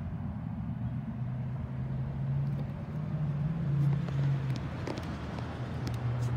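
Low, steady hum of a running vehicle engine, rising slightly in pitch around the middle and settling back, with a few light clicks from a motorcycle trunk lid being handled near the end.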